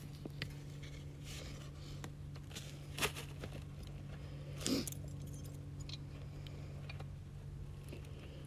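Steel foothold trap and its chain clinking and scraping against dirt and dry leaves as the trap is worked into the ground, with two sharper metal clanks about three and nearly five seconds in. A steady low hum runs underneath.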